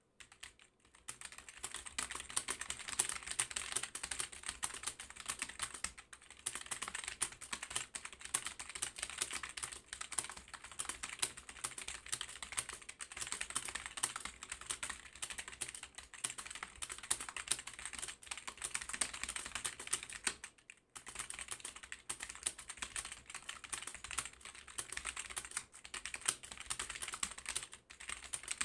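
Rapid touch typing on a computer keyboard: a dense, fast stream of key clicks, starting about a second in, with a few short breaks.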